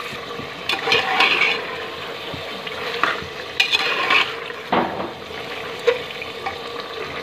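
A metal slotted spoon stirring mutton in an aluminium pressure cooker, scraping against the pot about six times, over the steady sizzle of the meat frying in mustard oil with onions.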